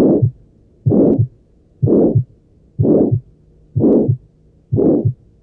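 Heartbeat with a heart murmur: a whooshing murmur on each beat, about one beat a second. Each beat is a loud whoosh of about a third of a second ending in a short low thud.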